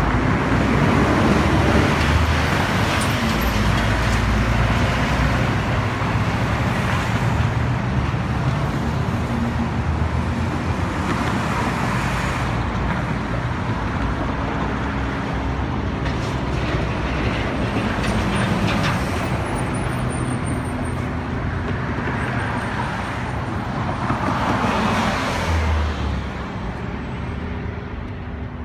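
Street traffic: cars and buses passing one after another, each swelling and fading, over a low steady engine hum.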